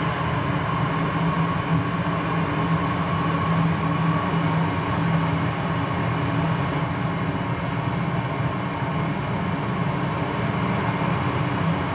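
Heavy military vehicles driving past in a column: tracked 2S19 Msta-S self-propelled howitzers and a wheeled S-400 launcher truck. Their diesel engines give a steady, loud, even drone.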